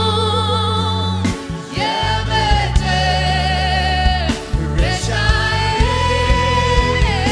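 Live Amharic gospel worship song: a woman's lead vocal holds long notes with vibrato over backing singers and a keyboard band with a steady beat.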